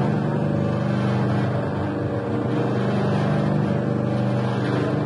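Motor-driven flour and dough mixer machine running steadily with an even, low hum.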